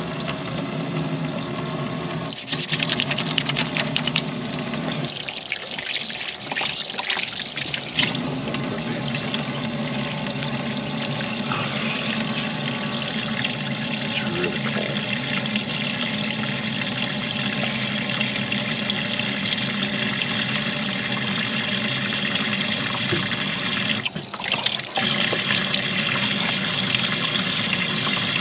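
Water running steadily from an outdoor tap and splashing over hands being washed, the splash changing as the hands move in and out of the stream.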